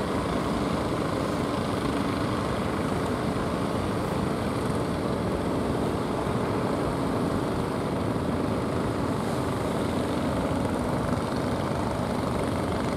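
Steady drone of a fishing boat's engine over the continuous rush of surf.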